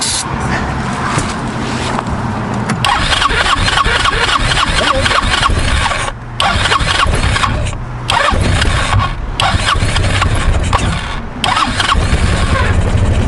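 250cc Hammerhead go-kart engine cranking and sputtering in several bursts with short breaks, trying to start cold on starting fluid after a carburettor clean. By the end it is firing and running unevenly.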